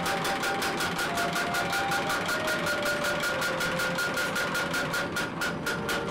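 Belt-driven mechanical power hammer running, striking in a fast, even rhythm of about five blows a second, with a steady ringing tone over the strokes.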